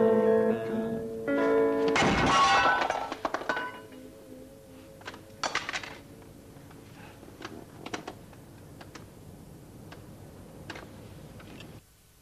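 A man sings the last drawn-out word of a lullaby over guitar, then about two seconds in there is a loud crash that rings on. After it come faint scattered guitar notes and small clicks.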